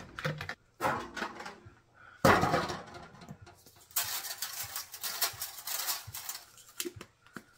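Seasoning containers and kitchen items clattering as they are rummaged through and set down on a counter. A sharp knock comes about two seconds in, followed by a few seconds of rustling.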